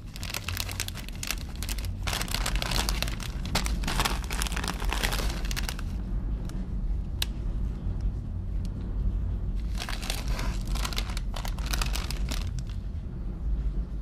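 Crinkling of Doritos chip bags being handled and turned over in the hand, in two spells: a long one over the first six seconds and a shorter one about ten seconds in, with scattered single crackles between. A steady low rumble runs underneath.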